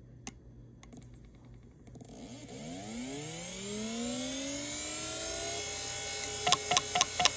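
Western Digital Caviar 31600 hard drive powering on: one click, then the spindle motor spins up with a rising whine that levels off. Near the end the heads begin clicking steadily, about three times a second, the sound of a drive that fails to start, which the owner puts down to probably corrupted firmware.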